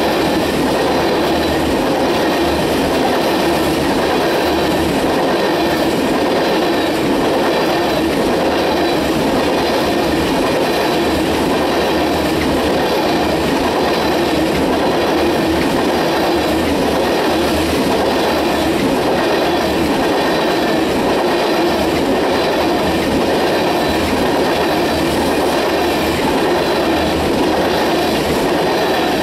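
Tank cars of a freight oil train rolling past at speed: a steady rumble of steel wheels on rail, with a clickety-clack over the rail joints.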